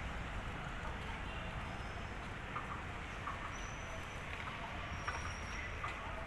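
Scattered faint chirps and peeps from small birds in the yard, over a steady low rumble.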